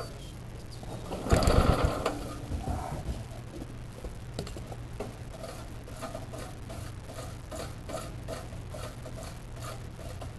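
Racing lawnmower's small engine being started: a loud burst about a second and a half in, then a rhythmic mechanical clatter at about two to three beats a second.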